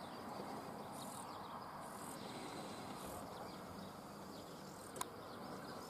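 Faint open-air countryside ambience: a steady low hiss with a few faint high chirps, and one sharp click about five seconds in.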